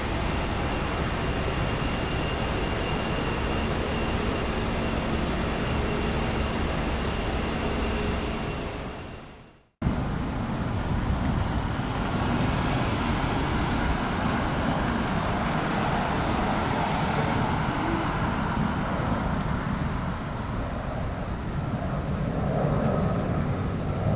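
Jet airliner engines running, heard as a steady noise with a faint steady whine. It fades out about nine seconds in, and the same kind of steady jet noise comes back abruptly after a brief silence.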